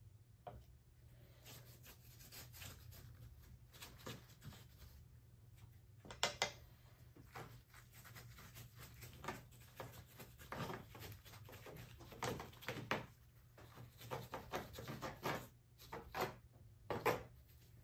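Stain being rubbed and dabbed onto a rough plaster scenery cliff by a gloved hand: short, scratchy rubbing strokes in irregular clusters, loudest about six seconds in and again near the end.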